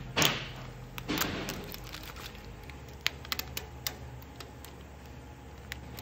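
Vinyl paint-mask stencil being peeled off a painted hood and crumpled in the hand: two crinkling rustles in the first second and a half, then light crackles and ticks.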